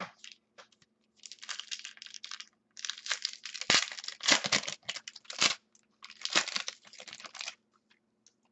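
Foil trading-card pack being torn open and its wrapper crinkled by hand, in three scratchy bursts with a few sharp crackles.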